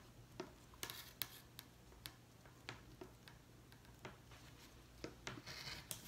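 Faint scattered clicks of a ruler and strap being handled on a cutting mat, then a rotary cutter rolling through the strap near the end with a short scrape.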